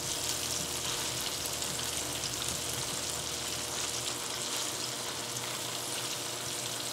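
Salmon pieces and green onions sizzling steadily in soy sauce and oil in a nonstick frying pan, with faint ticks of a spatula stirring them around.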